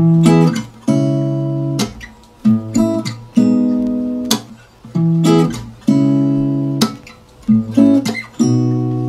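Background music: acoustic guitar chords strummed in a steady rhythmic pattern, each chord ringing and fading before the next.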